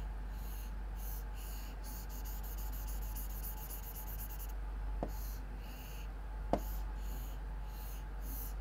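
Writing: quick, scratchy pen strokes of someone writing or drawing, thinning out about halfway through, with two sharp clicks a little past the middle.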